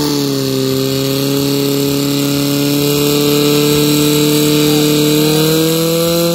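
Portable fire pump engine held at high revs, a steady loud drone pumping water through the attack hoses to the spraying nozzles. Its pitch rises slightly about five seconds in.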